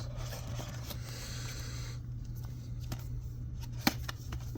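Small cardboard accessory box being opened and handled: a soft scraping rustle of card sliding on card for about two seconds, then a sharp click a little before the end.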